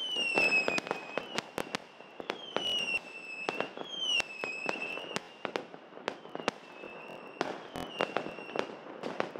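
A fireworks display: many sharp bangs and pops at irregular moments, mixed with short whistling tones that dip slightly in pitch, several times.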